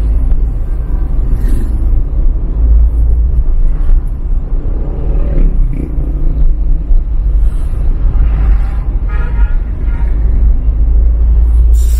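A car driving on a city street, heard from inside the cabin: a loud, steady low rumble of engine and road. About nine seconds in, a brief higher-pitched tone sounds over it.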